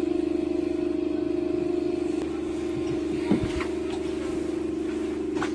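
Steady machine hum with a constant pitch, with a couple of faint knocks, one about three seconds in and one near the end.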